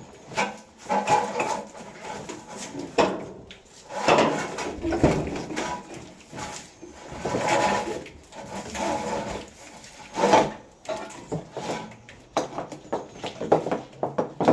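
Wiring loom and parts being handled and pushed into place under a vehicle: uneven rustling and scraping with many short knocks and clicks.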